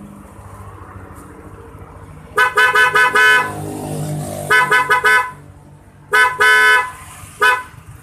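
Federal snail-type electric horn fitted to a Yamaha Lexi scooter, honking in bursts starting about two and a half seconds in: two rapid strings of short toots, then a longer double blast and one last short toot.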